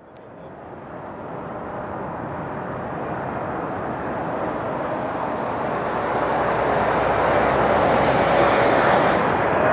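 Boeing 777F freighter's twin GE90 turbofan engines on landing approach: a steady jet roar that grows louder as the aircraft nears and is loudest about eight to nine seconds in.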